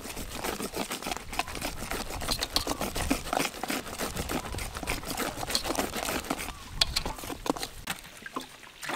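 Wire whisk stirring flour in a bowl: a rapid, uneven run of scraping clicks that thins out near the end.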